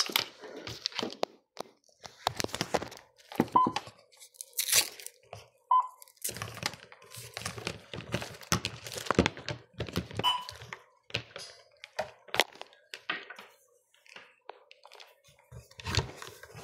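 Handling noise of an ECG setup on a patient monitor: irregular clicks, knocks and crinkling of cables and plastic as leads are connected, with a few very short beeps about three and a half, six and ten seconds in.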